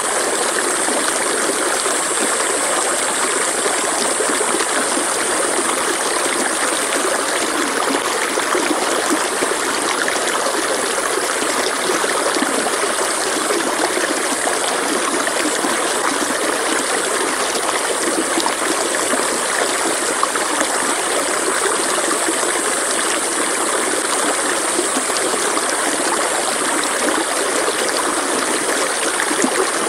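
Mountain stream running over rocks, a steady rushing and babbling of water. A thin, high steady hiss sits above it and swells a little at times.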